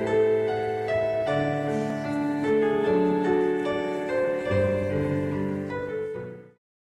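Keyboard music: slow, sustained piano-like chords that change about once a second, then cut off suddenly near the end.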